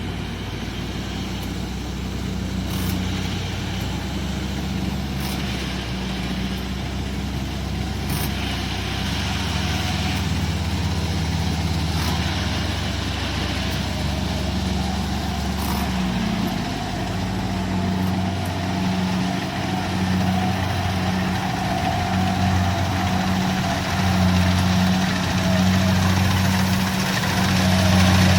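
Kubota DC-70 combine harvester's diesel engine running steadily in a rice field, growing a little louder near the end.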